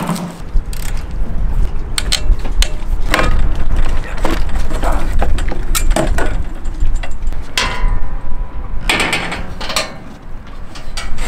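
Scattered metallic clicks and knocks as an aluminium angle frame is handled and fitted onto a boat's stainless-steel arch, over a steady low wind rumble on the microphone.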